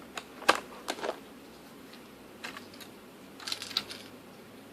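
Batteries clicking and knocking together as they are taken out and handled, with a few sharp clicks in the first second and a quick cluster of lighter clicks near the end.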